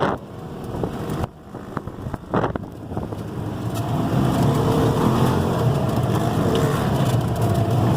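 Off-road ATV or side-by-side engine running, growing louder and steadier from about three seconds in after a brief drop in level a little over a second in.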